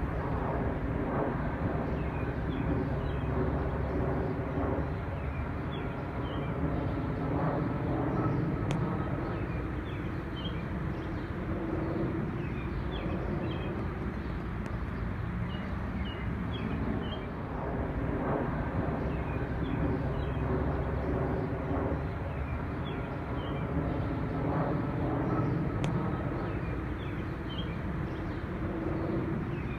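An aircraft on its approach to land passing, its engines giving a steady drone with several held tones that swells gently and eases. Small birds chirp throughout.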